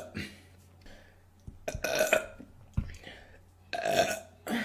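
A woman burping loudly, twice: once about two seconds in and again near the end.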